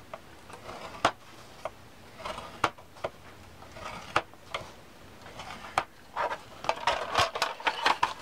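Bone folder scoring paper in the grooves of a plastic scoring board: scattered light clicks and taps as the folder sets into each groove and the paper is shifted, with soft paper rustling, busier near the end.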